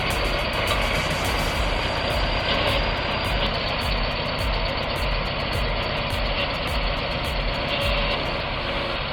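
Heavy machine's engine running steadily, with a low uneven throb.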